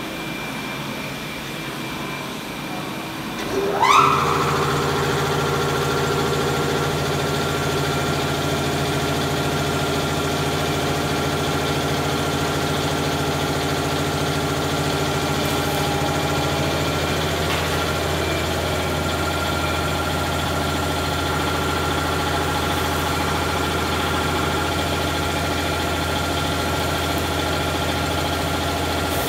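Straight knife grinder's motor starting about four seconds in with a quick rising whine, then running steadily as a low hum with a steady whine above it. A fainter hum comes before it.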